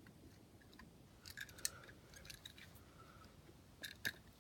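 Faint small clicks and taps of die-cast toy cars being handled in the hands, a few scattered ticks about a second and a half in and a couple more near the end.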